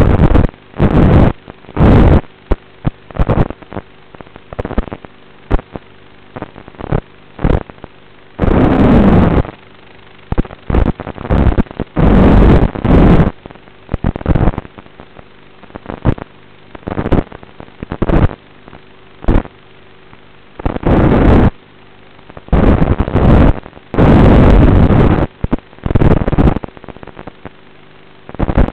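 FPV quadcopter's motors and propellers heard through its onboard camera microphone, coming in loud, distorted bursts with each punch of throttle, some brief and some a second or two long. A faint steady electrical hum lies beneath the gaps.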